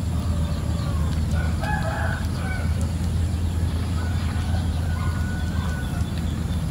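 A rooster crowing about a second and a half in, with a second drawn-out call from about four to nearly six seconds, over a steady low hum.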